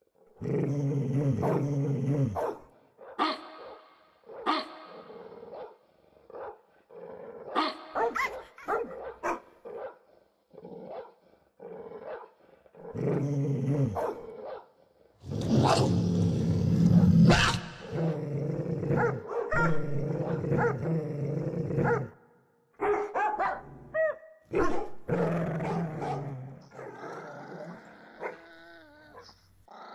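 Dogs barking and growling loudly in irregular bursts separated by short pauses, with low drawn-out growls under the barks in the longer stretches; the loudest, densest stretch falls about halfway through.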